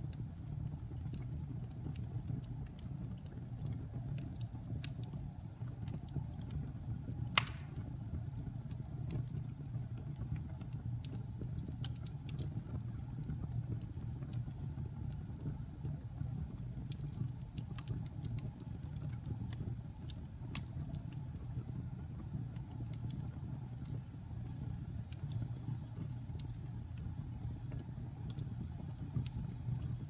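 Wood fire burning in a fireplace: a steady low rumble of flame with scattered small crackles and one sharp, loud pop about seven seconds in.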